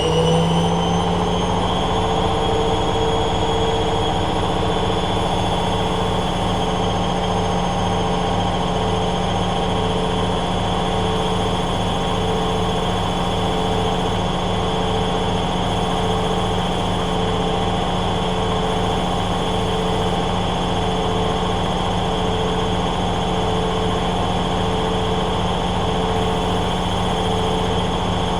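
Hoover Dynamic Next washing machine spinning at high speed in its final spin, heading for 1500 rpm. The motor's whine rises a little in the first two seconds, then holds steady over a low hum from the spinning drum.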